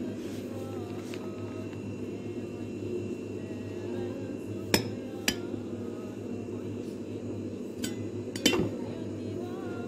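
Metal knife clicking against a plate as it cuts through a slice of cake: two sharp clicks about half a second apart near the middle, then two more near the end. A steady low hum runs underneath.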